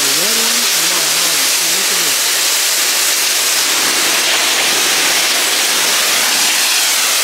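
Pressure washer spraying a high-pressure jet of water from a wand with a yellow-tip nozzle onto brick pavers: a loud, steady hiss of spray on the stone.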